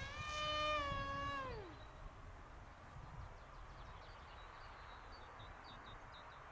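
Distant buzzing whine of an RC foam jet's electric motor and propeller in flight. It rises a little in pitch, then slides down and dies away about one and a half seconds in as the throttle is cut. After that only a low background rumble remains.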